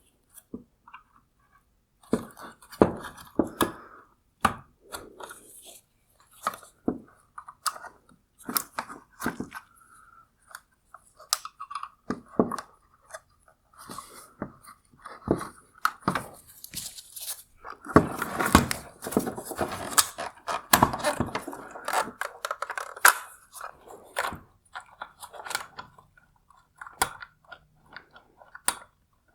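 Plastic clips on the back of a 2022 C8 Corvette LED headlight projector being pried apart: a string of irregular clicks, creaks and snaps of hard plastic, with a longer stretch of crunching and scraping about eighteen seconds in.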